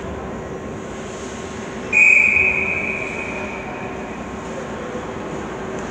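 A referee's whistle: one sharp, high, steady blast about two seconds in that rings out and fades in the arena's echo, likely signalling the restart of play. Under it, the arena's steady mechanical hum.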